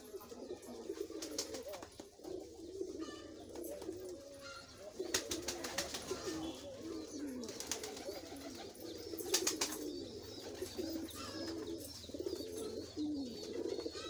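Domestic pigeons cooing, several low coos overlapping throughout. Three short bursts of rapid clattering cut through: near the start, around the middle and about two-thirds of the way in.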